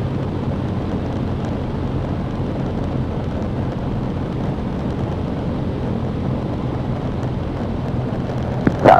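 Cessna 150's Continental O-200 four-cylinder engine running steadily, a constant hum and airflow rush heard inside the small cabin.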